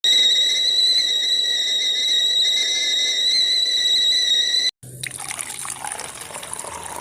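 A steady high-pitched whistle, held for nearly five seconds and cut off abruptly, followed by water pouring in a trickle.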